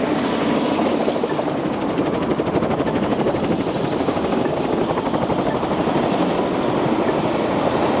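Helicopter in flight, its rotor and engine making a loud, steady noise with a fine, even flutter.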